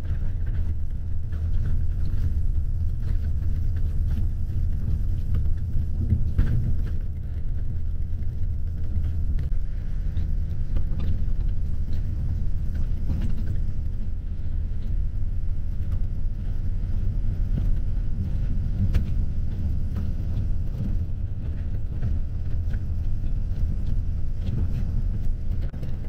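Steady low rumble of road and engine noise inside a moving coach bus, with a few faint clicks or rattles over it.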